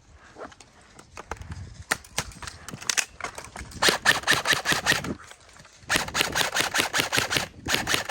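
Airsoft guns firing: a few scattered single shots, then rapid bursts of about ten shots a second about four seconds in and again from about six seconds in.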